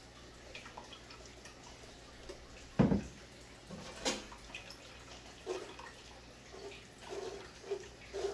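Tiger nut milk trickling and dripping through a mesh strainer into a stainless steel pot. A heavy thump about three seconds in as the blender jar is set down on the counter, a sharper knock a second later, then a spoon scraping the pulp in the strainer in short repeated strokes through the last few seconds.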